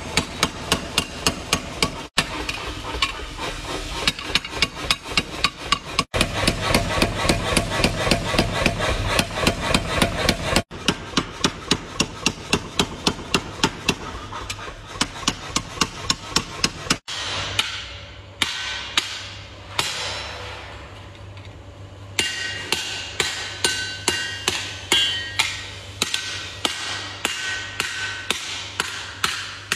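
Mechanical power hammer pounding a red-hot steel knife blank in rapid, evenly repeated blows. In the latter part a hand hammer strikes the hot blade on an anvil, about two ringing blows a second, over a steady low hum.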